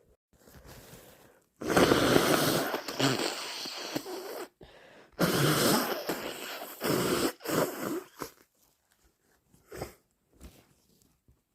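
A person with a cold blowing their nose hard: two long blows of about three and two seconds, then two short ones, followed by a couple of faint brief sounds.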